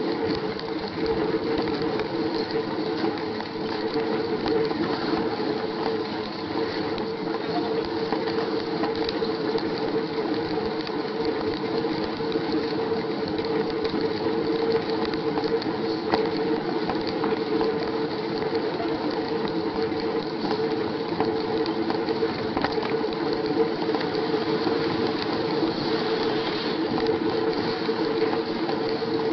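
Bicycle being ridden, its running gear giving a continuous rapid mechanical ticking and rattling over a steady hum.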